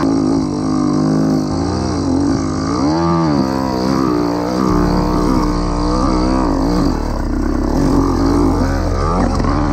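Small petrol engine of a motorised bicycle revving up and down repeatedly as the rider works the throttle over a dirt track.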